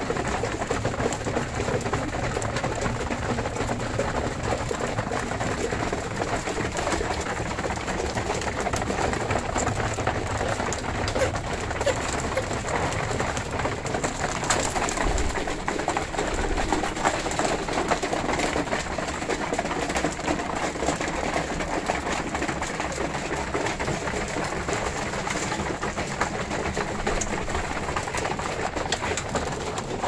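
A flock of domestic pigeons cooing, over a constant patter of fine clicks from the birds pecking seed out of plastic feeding bowls.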